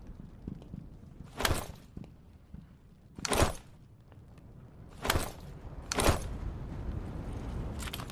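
Ice axe striking four times, each a short, sharp hit, the second the loudest and the last two closer together.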